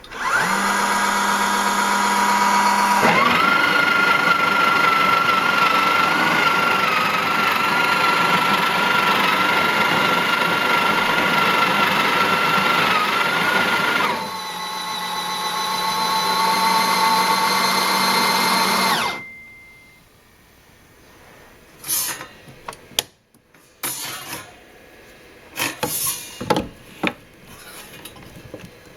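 Breville Oracle Touch's built-in burr grinder running for about nineteen seconds with a steady whine, its pitch shifting twice before it stops. A few clicks and knocks follow.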